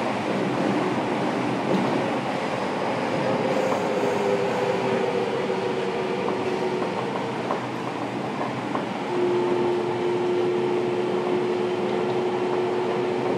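Running noise inside a Fukuoka City Subway 1000N series car on the move: a steady rumble of wheels on rail. A faint whine slides gently down in pitch over the first half, and a steady whine note holds from about two-thirds of the way in.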